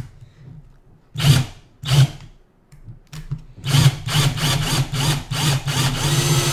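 Power drill boring out a screw in an old aluminium MacBook Pro case: two short bursts, then a longer run pulsing about four times a second that turns steady near the end.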